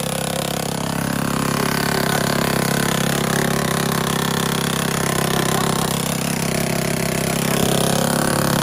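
Paintball gallery gun firing continuously on rapid automatic, a fast even mechanical rattle over a steady low motor hum.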